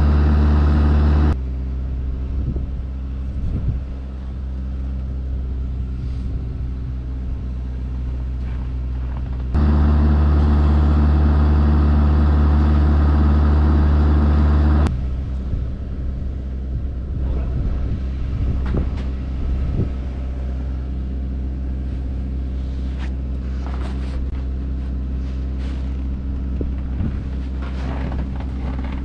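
Diesel engine of a Kubota KX121-3 mini excavator, a four-cylinder, running steadily while its jib boom holds a timber rafter. The engine is louder at the very start and again for about five seconds from ten seconds in, with a few light knocks near the end.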